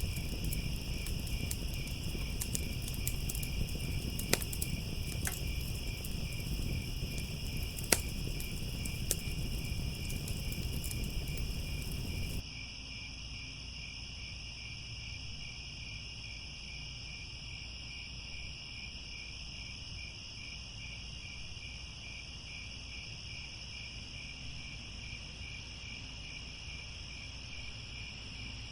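Crickets chirping in a steady, pulsing chorus. For about the first twelve seconds a wood fire crackles under them with sharp pops. The fire cuts off abruptly, leaving only the crickets.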